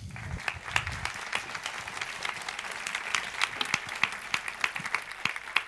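An audience applauding: many people clapping together, thinning out near the end.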